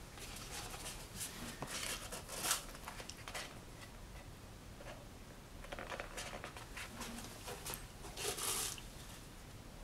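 Sheets of heavy black Stonehenge paper rustling and sliding as they are lifted and handled, with the swish of linen sewing thread drawn through the paper. It comes as irregular short rustles, loudest about two and a half seconds in and near the end.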